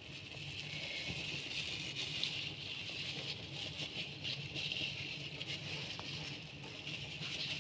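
Steady background hiss with a faint low hum and a few faint clicks from handling over a glass bowl.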